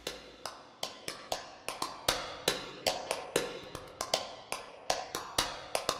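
A steady run of sharp clicks, about two and a half a second, with fainter clicks between them, like a tapped rhythm or click track.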